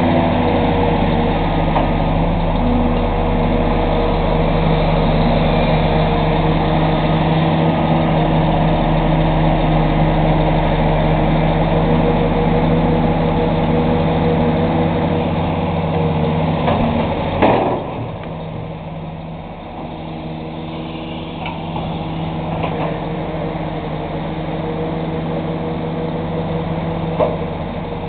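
Deere 600 excavator's diesel engine running steadily, with one sharp clank a little past the middle, after which the engine runs quieter.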